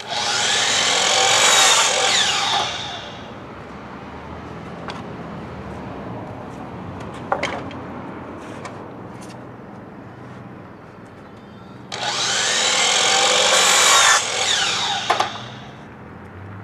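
DeWalt sliding miter saw cutting through a weathered reclaimed barn board twice: once at the start and again about twelve seconds in, each cut lasting a few seconds and ending with the blade spinning down in falling pitch. Between the cuts there is a low background with a few light clicks.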